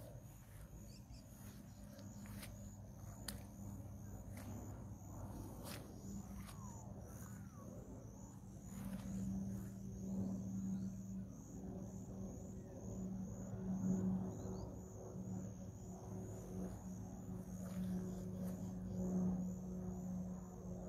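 Distant aircraft engine drone, a low steady hum that wavers and grows louder in the second half as it approaches. A high, evenly pulsing insect chirring runs underneath.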